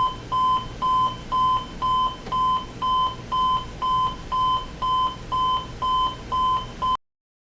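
Jensen JCR-230 clock radio's alarm beeping: a steady run of short, even, high beeps at about two a second, cutting off suddenly near the end.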